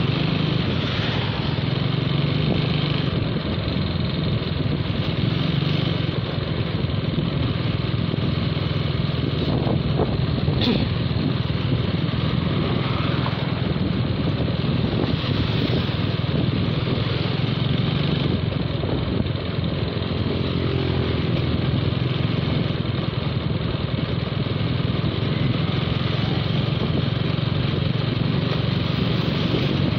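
Motorcycle engine running steadily at low road speed, heard from the rider's own bike with road noise, and one brief click about ten seconds in.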